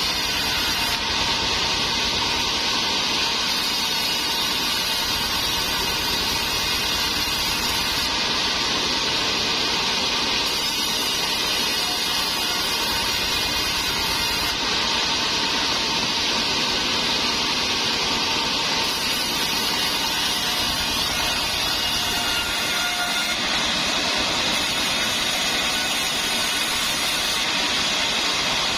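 Large vertical band saw cutting rain tree (trembesi) timber, its blade hissing through the wood over the steady running of the stationary engine that drives it. The cutting noise rises and falls as the slab is pushed through and drawn back.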